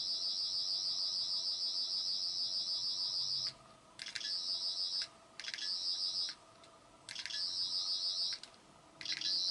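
13th Doctor sonic screwdriver toy, US version, playing its electronic sonic sound effect through its small built-in speaker: a high, fast-warbling buzz. It runs one long burst of about three and a half seconds, then four shorter bursts with brief gaps between them.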